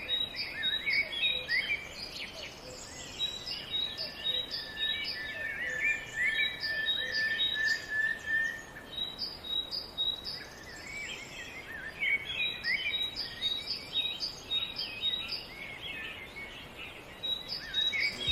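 Several birds chirping and singing, with quick repeated high notes and trills overlapping one another and a short lull about two-thirds of the way through.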